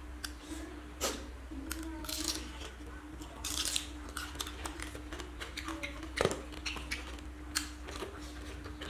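Small cooked crabs being pulled apart by hand and chewed: a run of sharp shell cracks and crunches, with chewing and mouth sounds, the loudest crack about six seconds in, over a steady hum.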